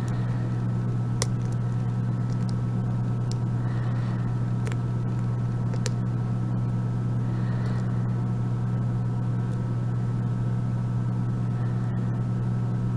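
Steady low hum, with faint, scattered clicks of a pick working the pins inside the six-pin brass cylinder of an Abus 34/55 padlock held under strong tension.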